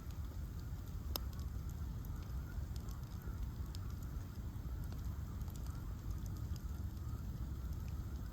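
Bonfire of ash logs burning, with scattered sharp crackles and pops over a steady low rumble; one pop stands out about a second in.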